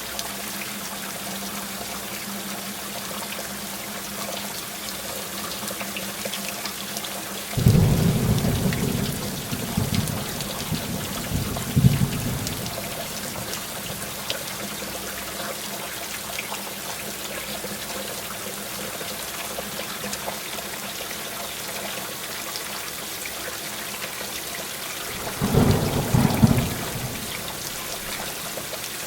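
Heavy rain falling steadily, with two rolls of thunder: a long one starting about a quarter of the way in that swells again a few seconds later, and a shorter one near the end.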